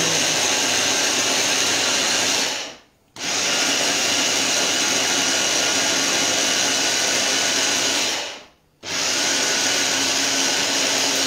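Electric kitchen blender running in three long bursts with a steady whine, stopping briefly twice, as it blends an olive-oil and pine-nut dressing.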